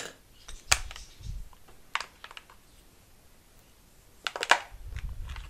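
Sharp, scattered clicks and taps of small plastic parts being handled: a model-aircraft servo and its plug connector, with a few dull low thumps in between. The clicks come singly for the first two seconds or so, then in a quick cluster a little over four seconds in.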